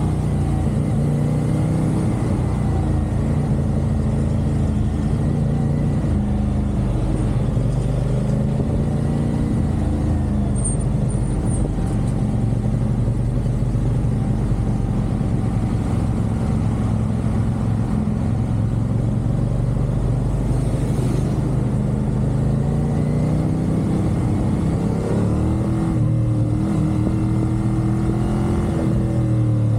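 CFMoto 450SR parallel-twin engine running at expressway speed, its pitch shifting as the throttle changes and rising about 25 seconds in, with steady wind and road noise.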